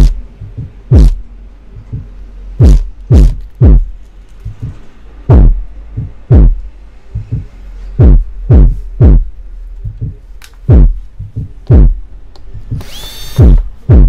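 Taga Harmony TSW-200 powered subwoofer playing the bass of a song through its repaired amplifier: deep kick-drum thumps, each dropping quickly in pitch, coming singly and in quick runs of three, over a steady low hum. A brief higher-pitched whine is heard near the end.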